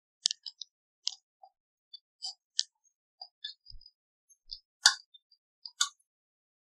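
Soft kachori dough being pressed and kneaded by hand in a ceramic bowl: scattered short sticky clicks and smacks at an irregular pace, the two loudest about five and six seconds in.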